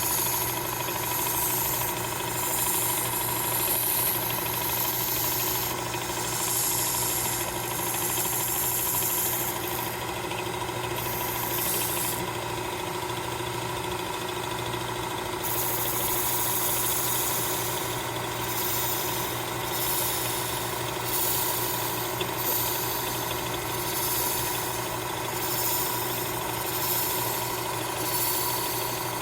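Work Sharp Knife and Tool Sharpener with the blade grinding attachment running steadily, its abrasive belt grinding a serrated bread knife in repeated passes. Under the constant motor hum, a high grinding hiss swells and fades with each pass, dropping away briefly about ten seconds in and again from about twelve to fifteen seconds in.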